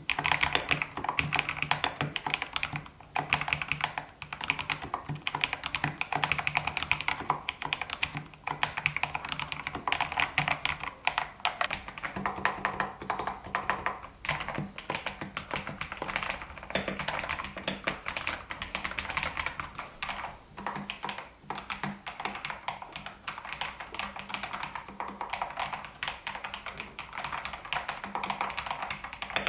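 Typing on an Epomaker Shadow-X mechanical keyboard: a fast, continuous stream of key clacks with only brief pauses.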